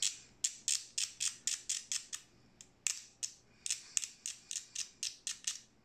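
X-Acto hobby knife blade scraping along the edge of a 3D-printed N scale plow part in quick short strokes, about four a second, with a brief pause near the middle. The blade is shaving off support nubs and truing up the edge.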